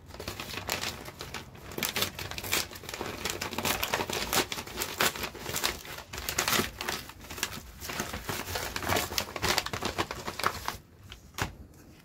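Padded paper mailer crinkling and crackling as it is handled and pulled open by hand, a dense rustle with many sharp crackles that dies down to a few clicks about eleven seconds in.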